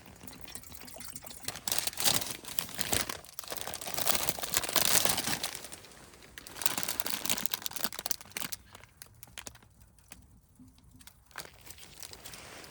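Cooking ingredients being unpacked and poured: plastic packaging crinkling and a pour, in three noisy bursts of a second or two each in the first two thirds, then quieter.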